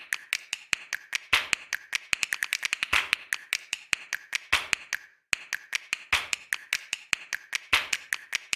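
A rapid, uneven run of sharp clicks and taps, several a second, broken by a brief cut to silence about five seconds in.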